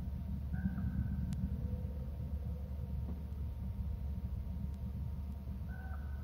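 Steady low outdoor rumble, like wind or surf on the nest camera's microphone, with a few short, faint bird calls: one about half a second in and another near the end.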